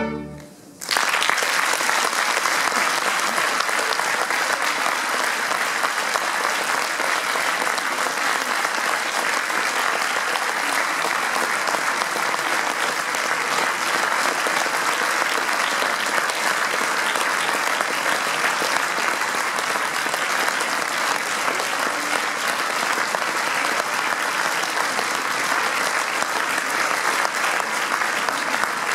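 The final chord of a string ensemble dies away, and from about a second in a concert audience applauds steadily.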